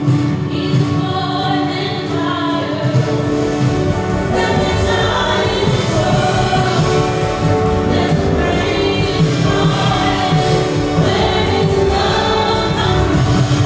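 Worship band playing a song with group vocals singing over it; deep bass comes in about three seconds in.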